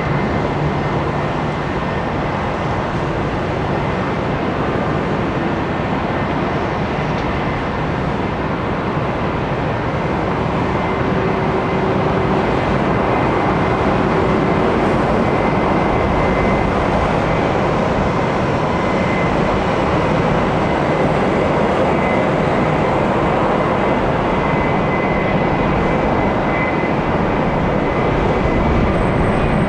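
Airbus A320's IAE V2500 jet engines running steadily on approach and landing, a dense roar with a faint high whine. It grows somewhat louder about twelve seconds in.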